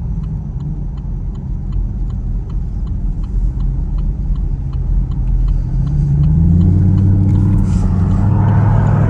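Chevrolet Camaro SS V8 cruising with a steady low exhaust note, then accelerating from about six seconds in, rising in pitch and getting louder. The turn-signal indicator ticks steadily at about three clicks a second through the first part.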